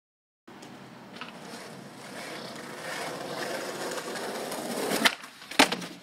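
Skateboard wheels rolling over paving stones, growing steadily louder as the board approaches. Near the end come two sharp board clacks about half a second apart, the pop and impact of a trick.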